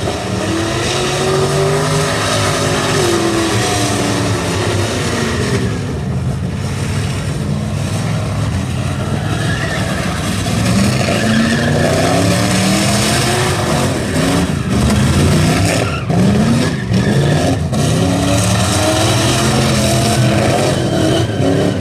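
Chevrolet V8 in a Subaru WRX STi revving up and down over and over while skidding, with tyres spinning and squealing on the pad. The engine is not running cleanly, which was later traced to spark scatter from a cracked distributor rotor.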